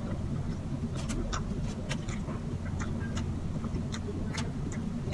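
Eating sounds of chewing tocino and rice: scattered short smacks and clicks from the mouth, over a steady low hum.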